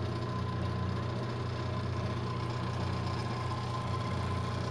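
Milling machine running steadily with its spindle turning a wiggler edge finder: an even low hum with a faint steady whine above it.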